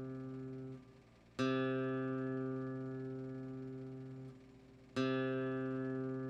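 The lower string of a bajo quinto's C course plucked as a tuning reference note. Two clear plucks, each left to ring for about three seconds before being damped, with the tail of an earlier pluck cut off just under a second in.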